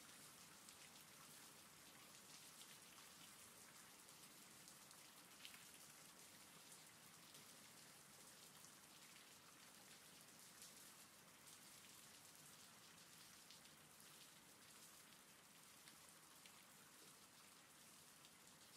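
Faint steady rain: an even hiss with scattered drop ticks.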